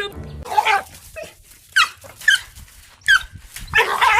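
A dog giving about five short, high yelping whines, each dropping in pitch, with the longest near the end.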